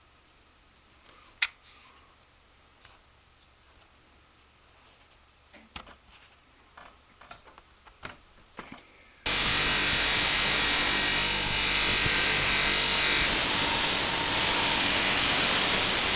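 Light handling clicks and taps, then about nine seconds in a power tool starts abruptly and runs loud and steady with a strong hiss over a motor hum.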